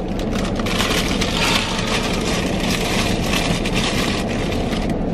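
Paper fast-food packaging crinkling and rustling as it is handled: a dense crackle of many small clicks that eases off near the end.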